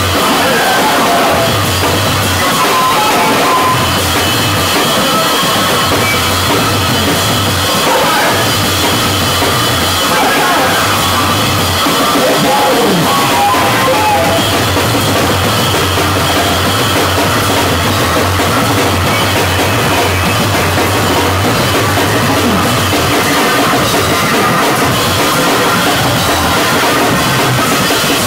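Loud live noise rock from a drum-and-bass duo: a drum kit played hard right beside the microphone, over distorted bass guitar, in a steady dense wall of sound.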